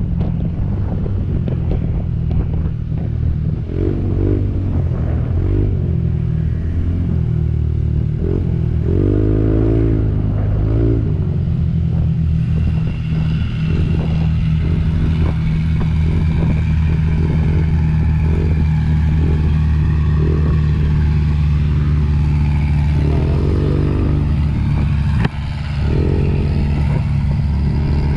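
Motorcycle engine running while riding at a steady pace, its pitch shifting briefly a few times as the revs change.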